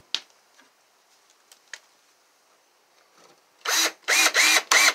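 Cordless drill driving screws through pocket holes into a wooden bed support. After a near-silent pause with a few light clicks, it comes in about three and a half seconds in as several short trigger bursts, the motor pitch rising and falling with each squeeze.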